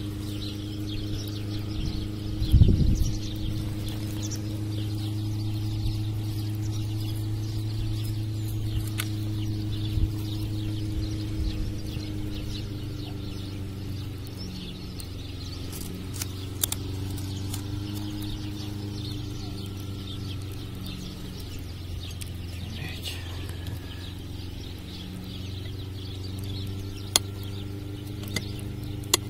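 A steady low hum runs throughout, with a loud knock about two and a half seconds in and a few light clinks of plates and a knife as tomato slices and butter are handled. Faint bird chirps come and go.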